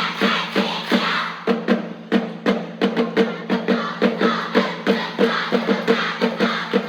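Upbeat music for a cheerleading routine, driven by a fast, steady drum beat of about three hits a second, with a dense sustained layer of sound over it.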